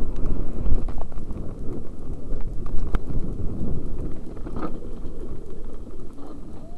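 Mountain bike rumbling and rattling over a rough dirt and rock trail, heard through a helmet-mounted camera, with wind buffeting the microphone. Scattered sharp clicks run through it, with one sharp click about halfway.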